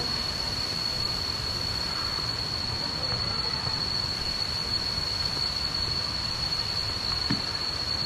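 Steady rushing roar of the Kuang Si waterfall's cascading water.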